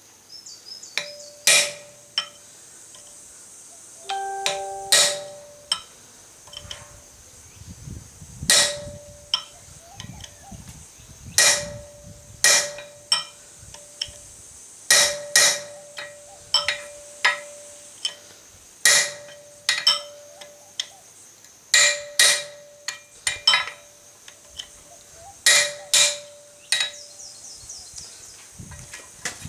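Hammer blows driving a hand-made 8 mm hot punch into a red-hot 25 x 12 mm flat-bar tong blank on an anvil: a string of sharp metallic strikes, often in quick pairs, each followed by a short ring.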